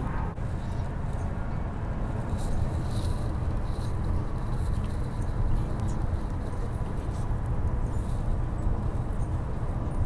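Steady low rumble of road and tyre noise inside a car cruising at motorway speed.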